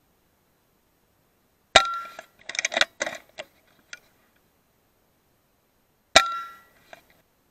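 Two shots from a .22 FX Maverick PCP air rifle, each a sharp crack with a brief metallic ring, about four seconds apart. Between them comes a quick run of clicks and clatter.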